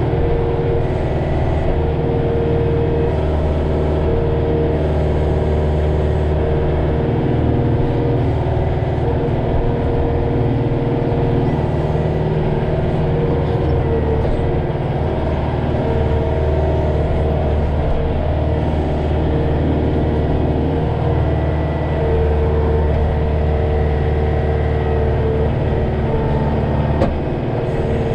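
Kioti DK40se tractor's diesel engine running steadily, heard from inside the closed cab, with a whine that swells and fades every few seconds as the loader and grapple are worked.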